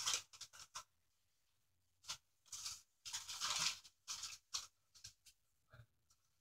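Pet rats rustling and crinkling paper bedding as they drag it about the cage: faint, short, irregular crackles of paper.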